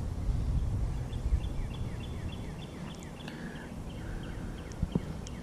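A songbird calling a rapid series of short down-slurred whistled notes, about three a second, beginning about a second in, over a low rumble of background noise.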